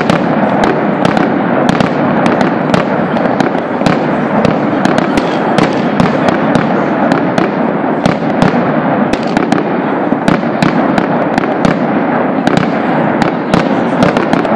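Fireworks display going off continuously: a steady rumble of bursts with many sharp cracks and bangs, several a second.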